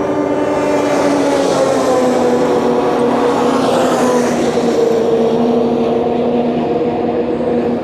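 Racing snowmobile engine running hard at high revs, a loud steady whine that dips slightly in pitch and picks up again.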